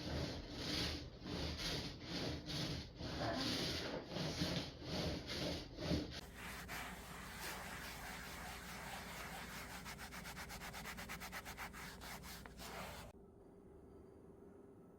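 Rhythmic rubbing or scrubbing strokes, at first slower and heavier, then a faster, lighter run of strokes, stopping about thirteen seconds in.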